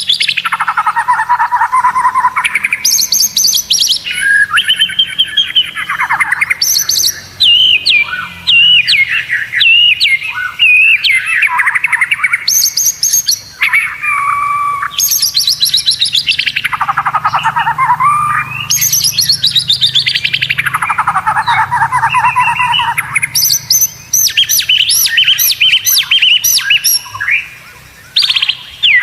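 White-rumped shama (murai batu) singing a loud, varied song of rapid trills and whistles. Several phrases are fast strings of notes that fall steeply in pitch, and near the end comes a quick run of repeated high notes.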